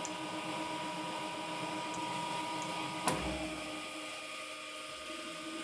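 TOS BUAJ 28 cylindrical grinder running with a steady hum and whine. About three seconds in there is a single clunk, after which the highest whine drops out, as the automatic grinding cycle ends and the infeed resets.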